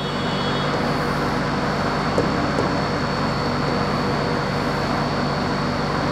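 A steady mechanical drone with a low hum and a thin high whine, coming in suddenly at the start and holding level throughout.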